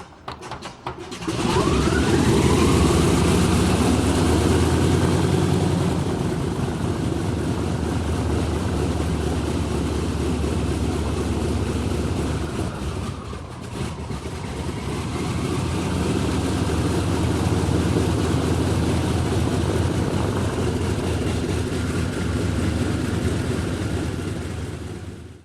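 Airplane engine starting: a few clicks, then it catches with a rising whine and runs loud and steady. It eases off briefly about halfway, builds again, and cuts off abruptly at the end.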